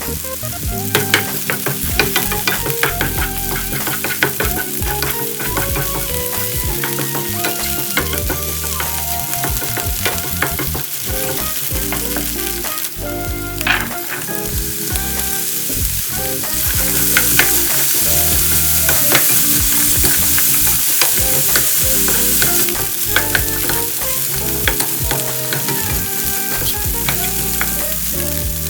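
Diced ingredients for ham and potato fried rice frying in oil in a pan: a steady sizzle with frequent sharp clicks of a spatula stirring and scraping. The sizzle swells louder for several seconds a little past the middle.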